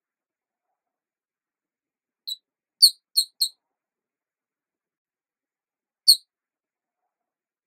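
Short, high-pitched chirps against dead silence: a faint one about two seconds in, a quick run of three straight after, and a single chirp near six seconds. The chirps repeat in a loop, like an added sound effect.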